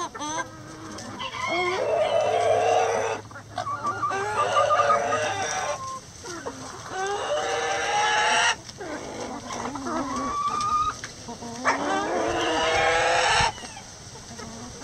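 A flock of chickens clucking and calling, with a string of loud drawn-out calls one after another, each a second or two long.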